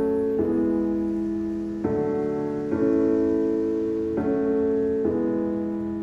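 A song with sustained piano-like keyboard chords, changing every second or so, playing through iBall Raaga Q9 2.1-channel desktop speakers (two satellites and a 4-inch subwoofer), with the bass turned up full and the volume at about 80%.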